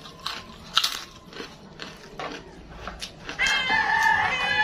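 Crisp crunching of a fried kerupuk cracker being bitten and chewed, a few sharp crunches. Near the end a cat gives one long meow of about a second and a half, louder than the chewing.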